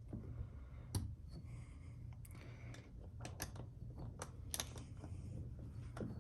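Scattered light clicks and taps from a hand tool tightening the bolts on a kayak seat support bracket, about eight of them at irregular intervals, over a low steady hum.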